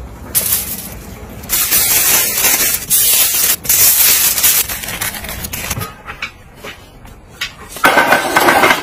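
Aluminium foil crinkling as it is wrapped around a beef shank, in a few loud bursts over the first half. Near the end, glowing charcoal pours from a chimney starter onto a grill grate with a loud clatter.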